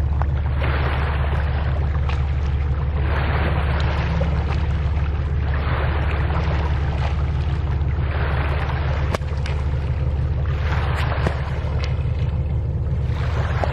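Steady low engine drone of a passing ship on the river, under a rushing noise that swells and fades about every one and a half to two seconds.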